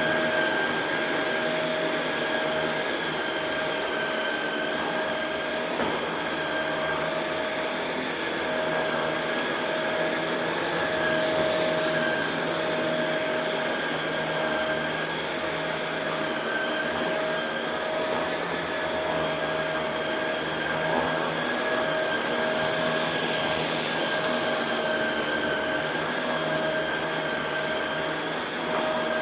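Shark Rotator Pro Lift-Away NV500 upright vacuum cleaner running steadily while vacuuming carpet: an even rush of air with a steady motor whine of several high tones, wavering slightly in pitch.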